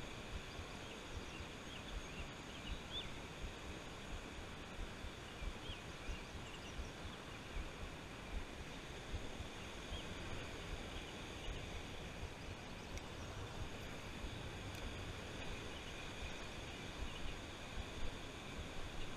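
Steady outdoor ambience of a shallow river flowing, with a low, uneven rumble on the microphone and a few faint bird chirps.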